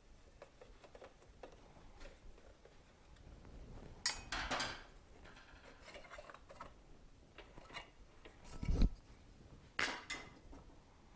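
Metal tools and parts being handled, clinking and scraping, with a dull thump near nine seconds in and another sharp clink just after.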